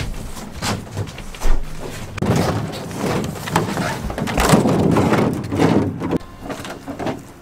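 Bumps, scrapes and knocks of a large plastic shower surround being handled and carried through a travel trailer's doorway, with a couple of heavier thumps.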